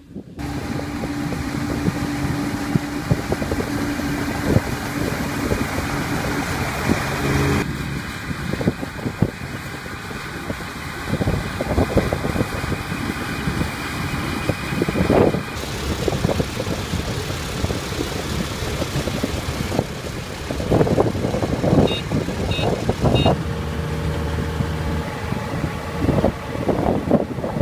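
Combine harvester running in a rice field: steady engine with rattling and knocking from the machinery, the sound changing abruptly several times. A few short high beeps come near the end.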